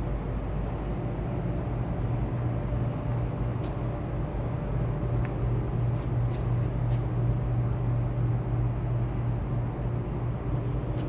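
Steady low mechanical hum filling a large factory hall, with a few faint clicks about halfway through.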